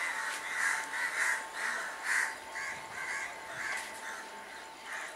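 Repeated harsh cawing calls, about nine in five seconds at uneven spacing, like a crow, over a faint steady tone.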